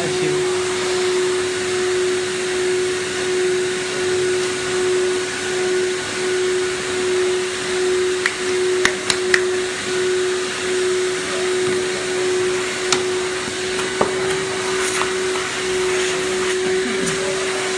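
Vacuum hold-down blower of a CNC knife-cutting table running steadily: a loud airy hiss with a strong hum that pulses slightly about once a second. A few sharp knocks about eight to nine seconds in and again around thirteen and fourteen seconds, as cut foam PVC pieces are handled on the bed.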